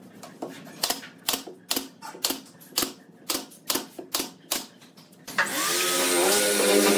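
Pneumatic nailer firing nails into pine pallet boards, about two sharp shots a second. About five seconds in, a cordless drill starts running into the wood, louder than the shots, its pitch sagging and recovering under load.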